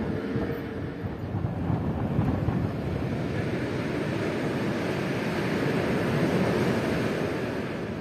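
Wind rushing and buffeting across the microphone, a steady rumbling rush that swells and then eases toward the end.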